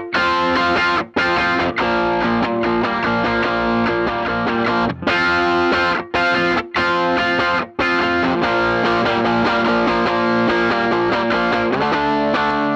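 Electric guitar with distortion, played through a Donner effects pedal into a cranked Bassman 59 amplifier: sustained chords that ring out and are choked off suddenly a few times, about a second in and twice between six and eight seconds in.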